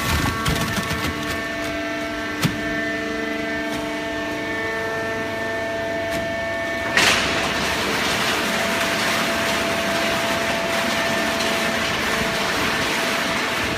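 Horizontal hydraulic waste-paper baler running with a steady, multi-toned machine whine and a few knocks in the first couple of seconds. About seven seconds in, a sudden loud burst gives way to a steady hiss over the whine.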